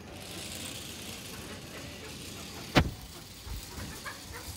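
Electric motors of a hand-gesture-controlled RC stunt car whirring as its wheels run over concrete. About three seconds in comes one sharp knock, the loudest sound, followed by a few softer bumps.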